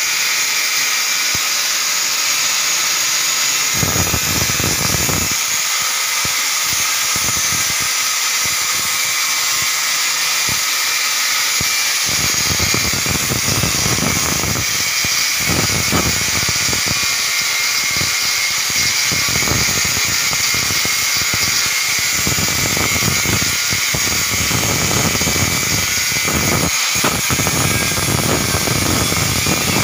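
Angle grinder running with a steady high whine, its disc cutting into a rusted metal toilet mounting bracket. The heavier grinding of the disc biting the metal comes and goes from about four seconds in and is near constant after about twelve seconds, with brief letups.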